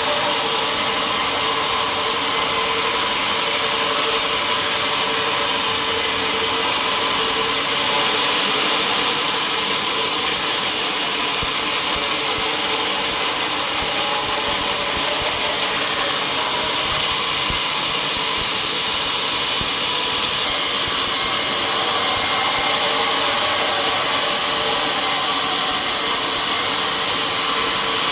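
Sawmill saw running steadily as it cuts through a log: a continuous loud hiss of sawing with a steady machine hum under it.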